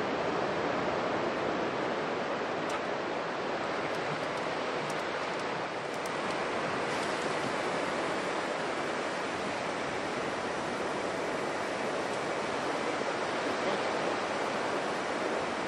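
Steady wash of surf breaking on an open beach, with a few faint clicks in the first six seconds.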